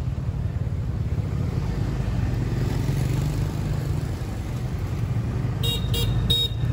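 Street traffic with motorbikes passing makes a steady low rumble. Near the end a vehicle horn gives three short, quick beeps.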